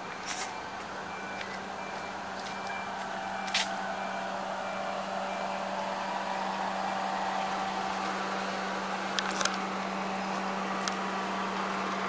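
A motor vehicle's engine running steadily, with a faint high-pitched beep repeating at even spacing through the first half and a few sharp clicks.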